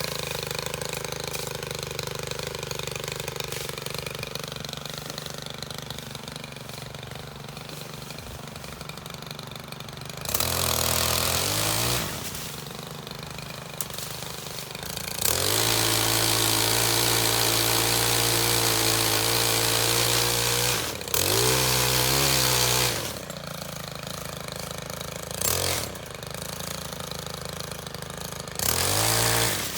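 STIHL KM 131R 4-MIX power head driving a pole saw attachment, idling between cuts and throttled up to full speed five times. The longest run is about five seconds, and each burst rises in pitch and then drops back to idle.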